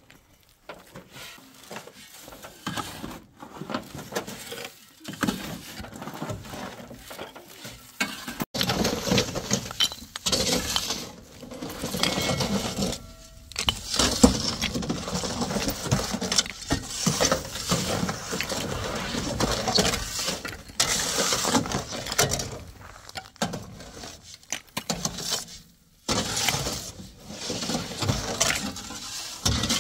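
Metal shovels scraping along a pickup truck's steel bed and scooping a loose, gravelly load, with repeated clinks and scrapes. The scraping is lighter at first, then after a sudden cut about eight seconds in it turns louder and more continuous.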